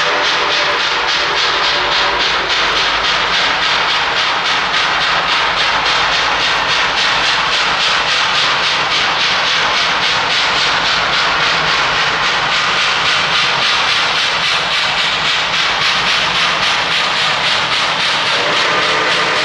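Baldwin 4-6-2 light Pacific steam locomotive working under steam as it approaches, its exhaust chuffing in a quick, steady rhythm. Near the end its steam whistle begins to sound.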